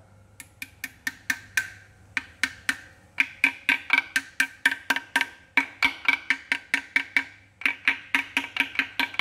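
Ball-peen hammer tapping a new front crankshaft oil seal into a timing cover already bolted to the engine block. Quick, sharp metallic taps, about four or five a second, each with a short ring, pausing briefly twice.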